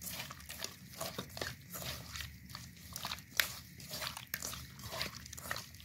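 Raw fish cubes being squeezed and turned by hand in a wet ketchup-and-spice marinade in a steel bowl: irregular wet squishing with small clicks and scrapes against the bowl, about two a second, one sharper click a little past halfway.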